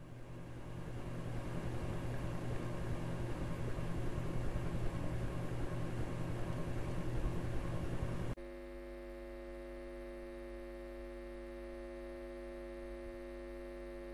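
Sound-design drone: a hissing wash over a low hum swells louder for about eight seconds, then cuts off abruptly into a quieter, steady hum of several held tones.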